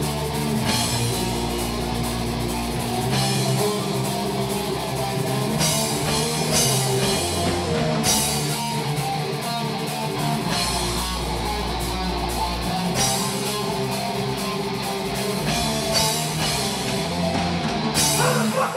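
Heavy metal band playing live, an instrumental passage of distorted electric guitars over a drum kit with sustained low notes and cymbal crashes every few seconds.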